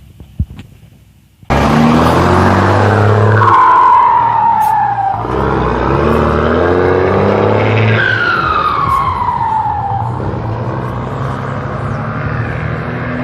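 A motor vehicle's engine running loudly. It cuts in abruptly about a second and a half in, and a whine falls in pitch twice.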